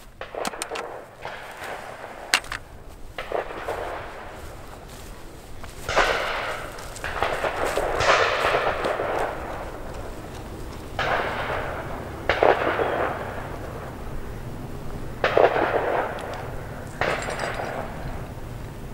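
Several distant gunshots, each a sharp crack followed by a long echoing tail, about six in all, a couple of seconds apart.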